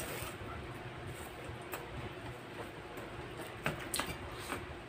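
Close-up mukbang eating sounds: chewing and lip-smacking on chicken liver and gizzard adobo with rice, with a few sharp small mouth clicks near the end.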